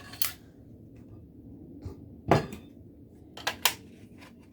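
Hard knocks and clicks from a fire alarm device being handled and set against its mounting plate: a soft click near the start, one loud knock about two seconds in, and two sharp clicks in quick succession about a second later.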